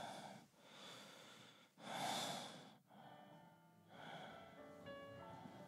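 A woman breathing heavily in a few faint, ragged breaths, the loudest about two seconds in. Soft music with held notes comes in near the end.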